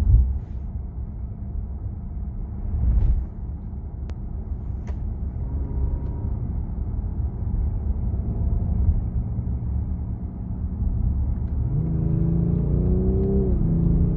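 BMW M550d's triple-turbo 3.0-litre inline-six diesel running in city driving, a low rumble. About twelve seconds in, the engine note rises as the car accelerates.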